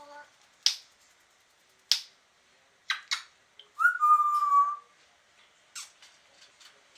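Pet parrot whistling one steady note of about a second near the middle, among several short, sharp calls.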